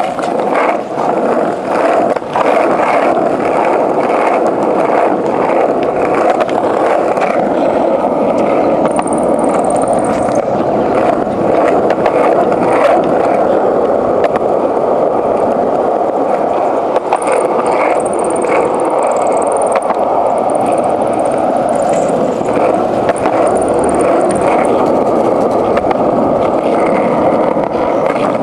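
Skateboard wheels rolling steadily over pavement, a continuous loud rolling noise with frequent short clicks and knocks from the board, most of them in the first half.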